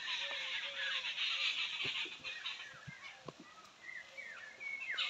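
Birds calling in the surrounding trees: a dense high chorus for the first couple of seconds, then repeated short falling chirps. A few soft low thuds, likely the wrestlers' bare feet and bodies on the dirt ground.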